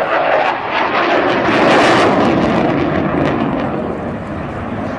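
Jet noise from a single-engine F-16 Fighting Falcon during its display flight, loudest about two seconds in and then easing slightly as it moves away.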